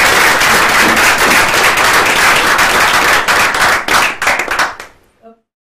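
Audience applauding, the dense clapping thinning to a few scattered claps and dying away about five seconds in.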